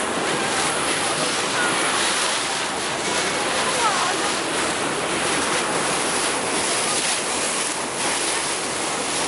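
Steady rush of water and wind on the open deck of a river cruise boat under way, with a few faint voices in the background.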